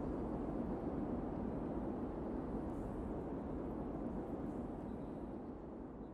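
Steady low rumbling background noise with no distinct events, fading out near the end.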